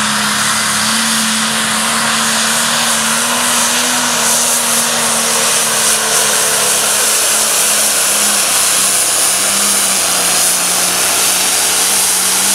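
International pulling tractor's turbocharged diesel engine running flat out under load as it drags the weight-transfer sled down the track, loud and steady, its pitch holding nearly level.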